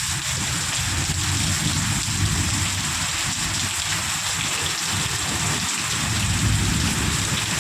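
Heavy rain pouring down steadily, with a low rumble underneath.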